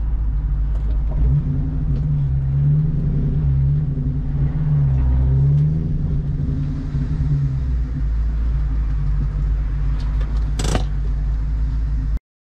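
The 4.6-litre V8 of a 1999–2004 Mustang GT, breathing through a DNA Motoring cat-back and JBA H-pipe, heard from inside the cabin. The engine pitch rises and falls twice, then settles to a steady idle. A brief sharp noise comes near the end, just before the sound cuts off.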